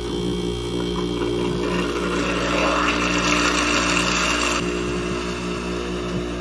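Window air-conditioner scroll compressor running upside down with a steady hum, pumping its oil out through the outlet pipe. From about two seconds in to about four and a half seconds, a louder hissing rush comes from the outlet as air and oil blow out.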